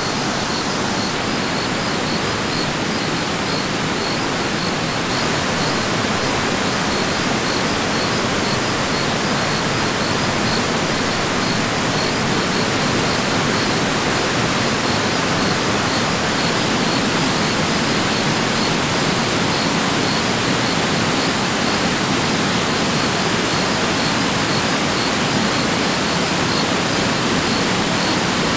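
Steady, even rushing of water with no breaks or changes in level, with a faint high-pitched note pulsing at a regular rate above it.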